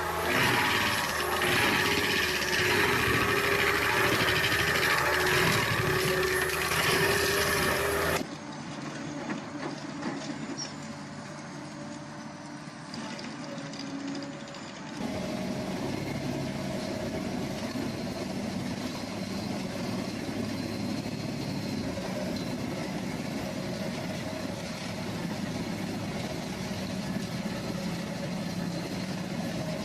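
Heavy equipment engines running in a series of clips, the sound changing abruptly about eight seconds in and again about fifteen seconds in.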